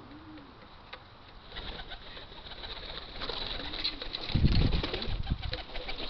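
Pigeons cooing softly, a short low coo near the start and another later. From about a second and a half in there is a rising flurry of wing flaps, loudest about four seconds in as a pigeon flies in close.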